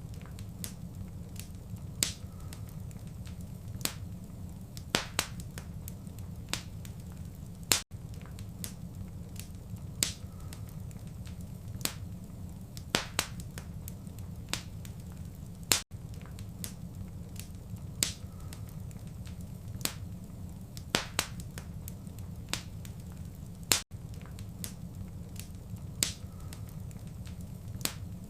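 Wood fire crackling in a fireplace: sharp pops and snaps scattered irregularly over a steady low rumble of the flames. The sound cuts out very briefly about every eight seconds, where the recording loops.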